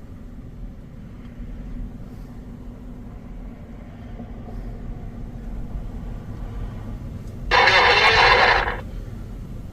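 Strong wind rumbling on the microphone. Near the end, a two-way radio speaker gives about a second of loud rushing hiss, a transmission that carries nothing but wind.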